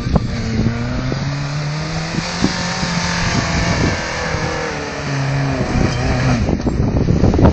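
Off-road 4x4 buggy's engine revving hard under load as it climbs a steep sand bank, its pitch holding steady and then stepping up and down several times.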